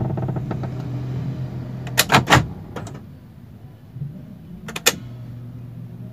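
Toyota Rush heard from inside the cabin while stopped at idle, giving a steady low drone: the humming, rumbling noise the owner is complaining about. The drone fades about three seconds in and comes back near the end. Several sharp clicks or knocks come about two seconds in, and two more near the end.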